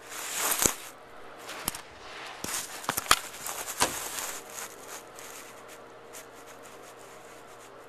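Cat scratching at a closed bathroom door and knocking it against its frame, trying to get out: a run of scratchy rasps and sharp knocks for about four seconds, then a few faint ticks.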